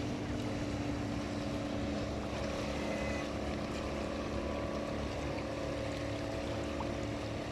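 Boat engine running steadily, a constant hum over the rush of water and wind.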